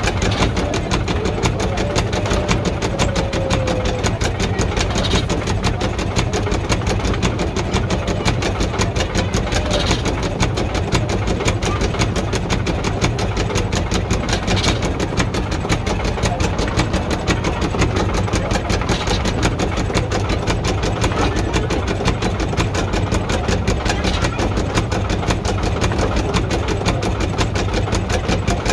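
Wooden gearing of a water-driven grain mill running: the large wooden cog wheel's teeth meshing with the pinion in a steady, rapid, even clatter. A brighter click comes about every five seconds, once per turn of the wheel.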